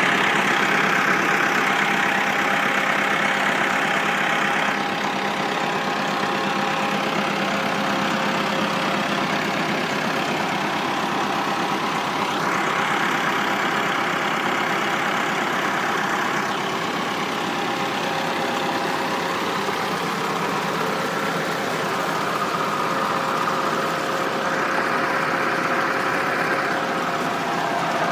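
Millat MF 385 tractor's diesel engine running steadily at a constant speed.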